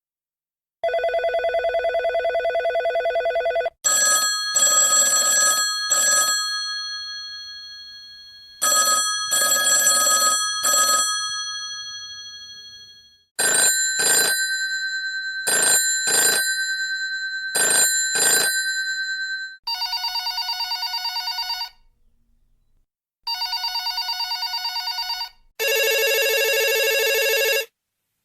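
A run of different telephone ringtones with short gaps between them: a steady electronic ring, then bell-like tones struck in groups of three that die away, then rings struck in quick pairs, then a trilling electronic ring played twice, and a last steady ring near the end.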